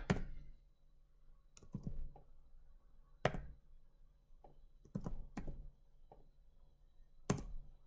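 Computer mouse clicks and keyboard keystrokes: a handful of separate short clicks with quiet pauses between them, the sharpest about three seconds in and near the end.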